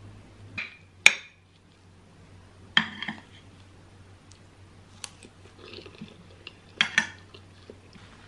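Metal spoon clinking and scraping against a ceramic plate as it cuts into a soft soufflé omelette: a few sharp clinks, the loudest about a second in, more near three and seven seconds.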